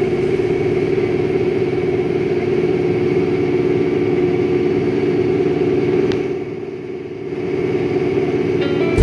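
John Deere 5100E tractor running steadily while pulling a John Deere 435 round baler, with the sound easing briefly about two-thirds of the way through.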